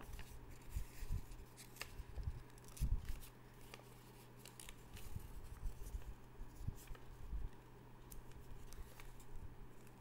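A sheet of paper being folded and creased by hand in origami: scattered crinkles and rustles with a few soft low knocks from handling, the strongest about three seconds in.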